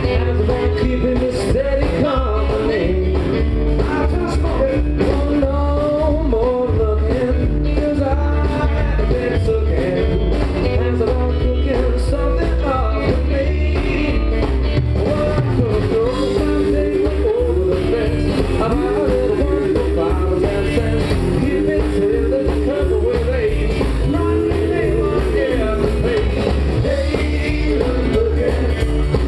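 Live country rock band playing a rock-and-roll number: upright double bass and drum kit keep a steady beat under a sung vocal line.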